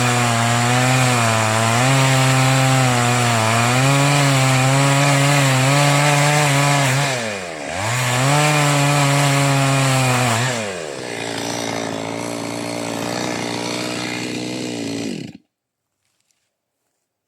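Two-stroke chainsaw running at high revs, its pitch wavering under load as it cuts wood. About halfway through the revs drop sharply and climb again. Then the engine falls back to a steady idle, and the sound cuts off suddenly near the end.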